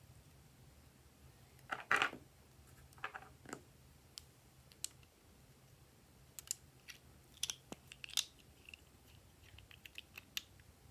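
Small scissors snipping a lipstick about two seconds in, with a couple more snips soon after, then scattered light plastic clicks and taps as small nail polish bottles are handled and a cap is twisted off.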